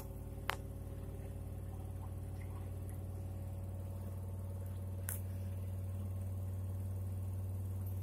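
LG FV309N front-loading washing machine running mid-cycle: a steady low electrical hum that grows slightly louder, with a sharp click about half a second in and another about five seconds in.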